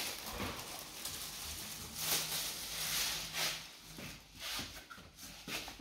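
Soft rustling of plastic wrapping as a speaker grille is handled, in a few short bursts, the loudest about two and three seconds in.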